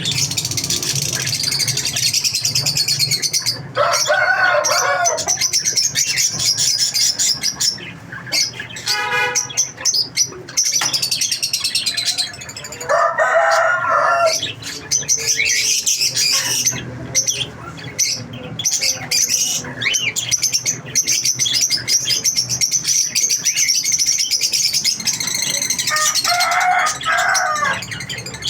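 A flock of caged lovebirds chattering with constant high-pitched chirps. A few louder, lower calls break in about 4, 13 and 27 seconds in.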